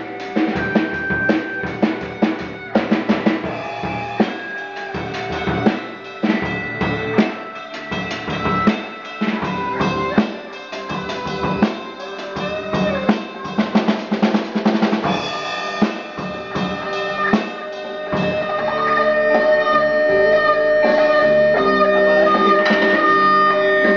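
Amplified electric guitar and a drum kit playing together in a live rehearsal, with busy kick, snare and cymbal hits under the guitar. About three-quarters of the way in the drumming thins out and held notes ring louder.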